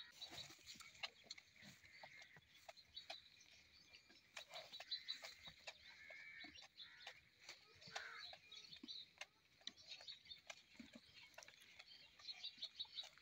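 Faint, irregular wet sucking and smacking clicks of a calf suckling at a goat's teat, several a second, with a few short high chirps in between.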